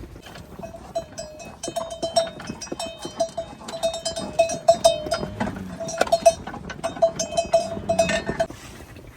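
Livestock bells clanking irregularly, many quick strikes over one ringing note, stopping about eight and a half seconds in.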